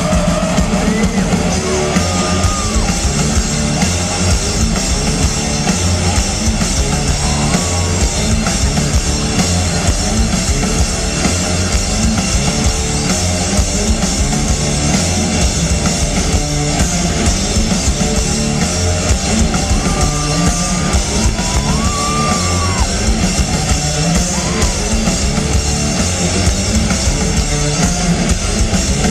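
Rock band playing live and loud: drum kit, bass and electric guitar through an arena sound system, picked up by a small camcorder microphone in the crowd.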